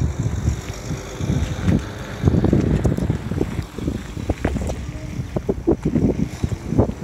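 Wind buffeting a handheld microphone outdoors, an uneven, gusty low rumble that swells and drops every second or so.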